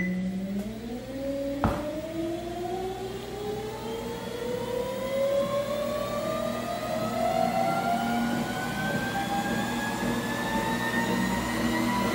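NordicTrack T 6.5 S treadmill's drive motor and running belt speeding up to top speed: a whine that rises steadily in pitch throughout. A short beep sounds at the start and a click comes under two seconds in. The belt runs without rubbing.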